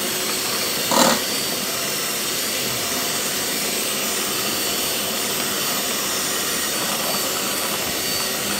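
Scarlett electric hand mixer running steadily, its twin beaters whisking eggs, sugar and oil in a ceramic bowl. A brief knock about a second in.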